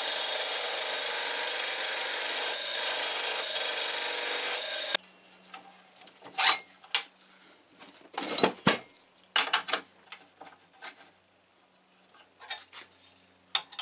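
STD-120 wood lathe running with a turning chisel cutting the spinning wooden blank, a steady scraping noise that stops suddenly about five seconds in. After that, scattered light knocks and clinks of the steel tool rest and tools being handled.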